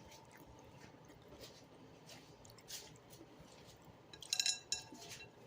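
A person eating soup: faint chewing, and a brief clink of tableware about four seconds in.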